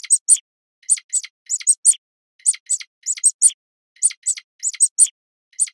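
Rabbit sound: short, dry, high clicks in quick groups of two to four, repeating a little more than once a second.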